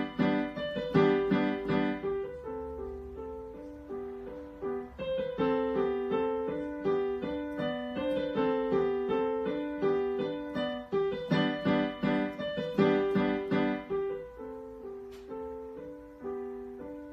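Digital piano played by a child: a march-like melody over a steady alternating bass, with louder repeated chords near the start and again about two-thirds of the way through.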